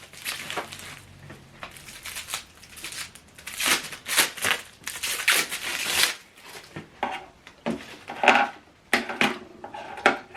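Plastic wrapping crinkling and rustling in irregular bursts as a TV soundbar's remote control is unwrapped and handled.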